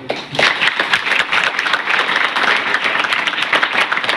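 Crowd applauding: many people clapping, picking up within the first half second and going on steadily.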